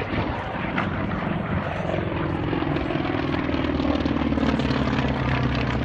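A piston-engine propeller warbird flying past, its engine drone sliding slowly lower in pitch from about two seconds in as it goes by.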